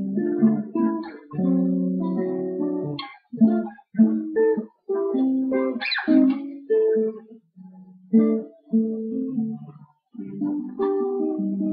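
Guitar being played: plucked notes and chords in short phrases, with brief stops about three and ten seconds in.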